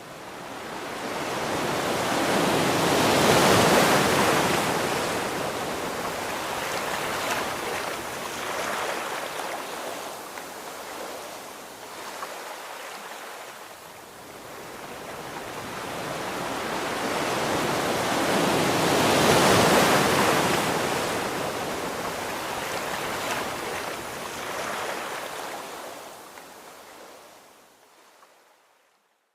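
Sea waves breaking and washing up on a beach. Two long swells build to a peak, one a few seconds in and one about twenty seconds in, and the sound fades out at the end.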